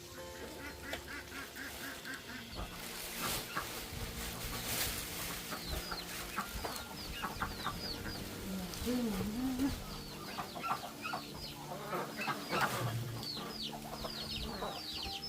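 A flock of chickens and chicks calling, with many short, high, falling peeps and scattered clucks.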